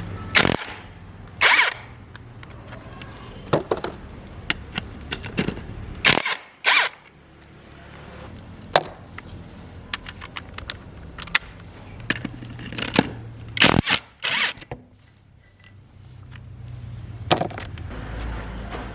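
Irregular knocks, clanks and short scrapes of tools at work, with a faint low hum in places.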